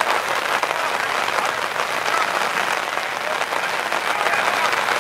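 Steady rain falling, a dense, even patter of many drops.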